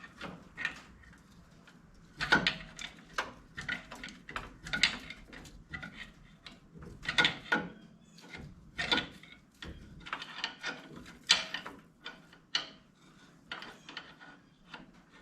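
Irregular clicks and knocks of hand tools and metal parts being handled while working on a diesel backhoe engine, some sharp and loud, others light.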